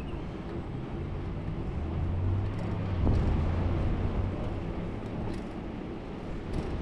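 A motor vehicle passing close by: a low engine and tyre rumble that swells to its loudest about three seconds in, then fades, over steady traffic noise.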